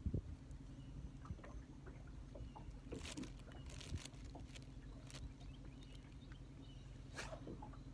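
Steady low hum on a bass boat, with scattered light clicks and knocks from fishing tackle and the deck, and brief swishes about three seconds in and again near the end.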